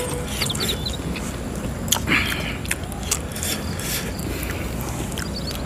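Close-up eating sounds of someone working through meatballs in chili sauce: chewing and mouth smacks with sharp clicks scattered throughout, over a steady low background noise.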